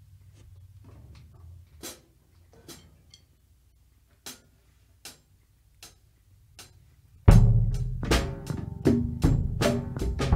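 A rock song's opening: a few sparse, separate drum hits over a faint low hum, then about seven seconds in the full band comes in loud with drum kit and sustained pitched instruments.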